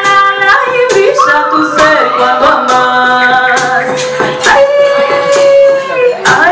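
A woman singing long held and sliding notes into a microphone, with a hand-held rattle shaken in a steady beat under her voice.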